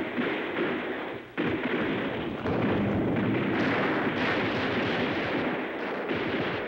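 Battle sound of artillery fire and explosions: a dense, continuous barrage of crackling blasts with no gaps between them, dipping briefly about a second and a half in before picking up again.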